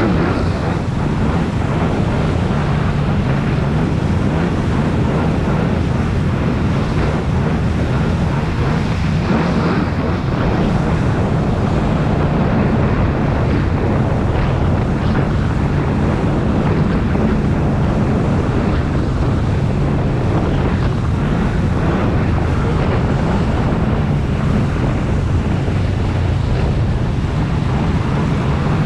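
Jet ski running steadily at speed: a constant low engine note under heavy wind noise on the microphone and rushing water from the hull and spray.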